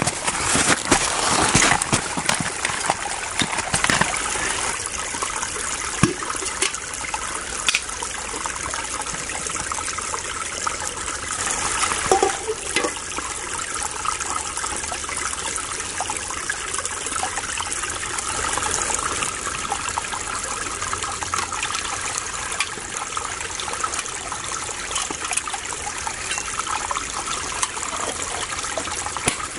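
Water of a small spring-fed stream trickling steadily. A few sharp knocks and clinks sound in the first four seconds and again around six and twelve seconds in, as water is scooped from the spring.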